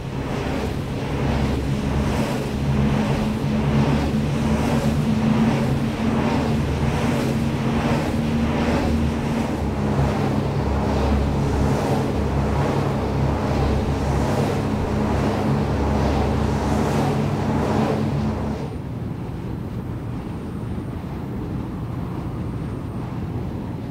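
Wind turbine running close up: a steady low hum with a regular swooshing pulse as the blades pass. A little over three-quarters of the way in it cuts to a quieter, steadier rush of the same turbine heard about 50 metres away.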